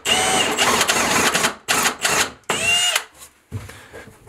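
Cordless drill spinning a countersink bit into a bathtub's mounting flange. It runs in several short pulses, the motor whine rising and falling with each, and stops about three seconds in.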